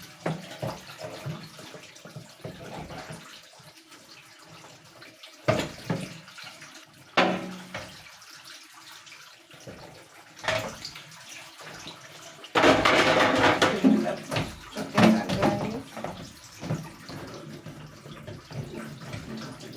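Hand-washing fridge shelves and parts in soapy water: scrubbing and sloshing in short bursts, with a louder stretch of splashing water lasting about three seconds a little past the middle.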